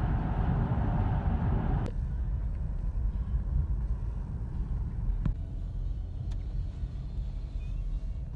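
Road and engine noise inside a moving car's cabin: a steady low rumble. About two seconds in it changes abruptly to a quieter rumble with less hiss, and a couple of faint clicks follow.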